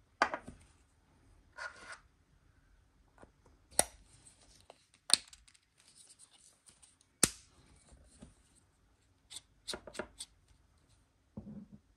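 Hard plastic clicks and scraping as the end cap of an LTT ratcheting screwdriver is handled and a 3D-printed PETG replacement cap is pressed onto the handle. There are several sharp clicks with rustling scrapes between them, and a quick run of clicks near the end.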